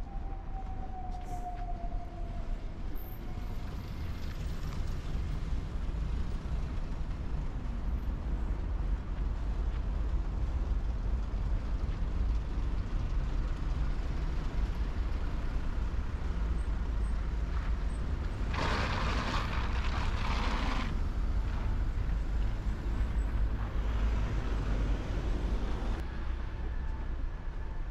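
Road traffic going by: a steady low rumble from a heavy vehicle that builds and fades, with a hiss lasting about two seconds around two-thirds of the way through.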